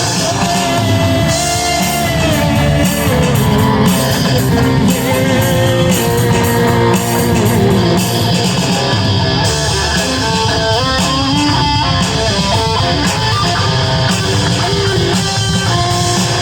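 Loud rock music led by distorted electric guitar, playing on without a break.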